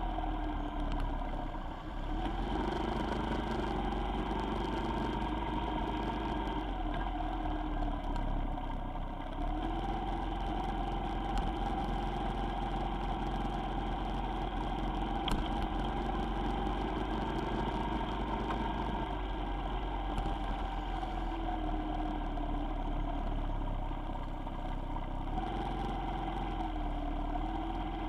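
Vehicle engine running while driving on city roads, its pitch rising and falling several times as the speed changes, over a steady low rumble.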